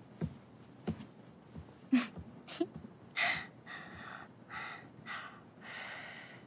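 A few light knocks, then a young woman's quick breathy gasps and excited breaths, about five in a row over the last three seconds.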